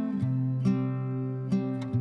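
Instrumental background music with plucked acoustic guitar notes.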